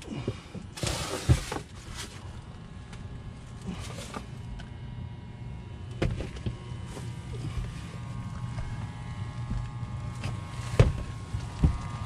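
Attic heating unit running with a steady low hum and faint steady tones, under rustling and sharp knocks from someone moving over plywood decking and flexible duct: a burst of rustling about a second in, and the loudest knocks near the end.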